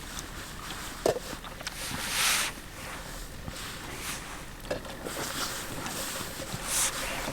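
Small clicks, taps and short scrapes of camp cookware and cutlery being handled during a meal, with a brief rustling scrape about two seconds in and another near the end.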